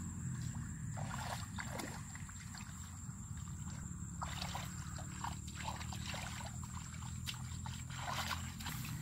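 Hands splashing and sloshing through shallow muddy water while groping in the mud, in irregular small splashes that grow busier in the second half, over a steady low rumble.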